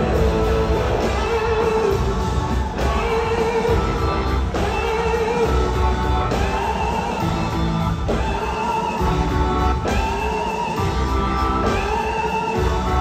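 Live rock band playing an instrumental passage: electric guitars play held, bending lead notes over drums.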